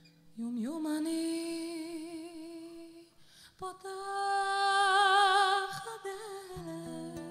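A woman singing two long held notes with vibrato, almost alone, the first scooping up into pitch and the second louder. An acoustic guitar and the band come back in near the end.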